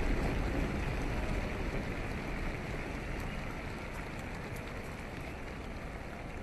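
Low rumble of a large aerial fireworks barrage dying away after the last bursts, fading slowly into a steady noise haze with a few faint crackles.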